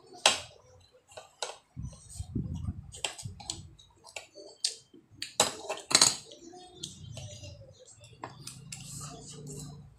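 Metal spoons clinking and scraping against plates as rice is scooped up, in a string of short, sharp clicks. The loudest clinks come near the start and about six seconds in.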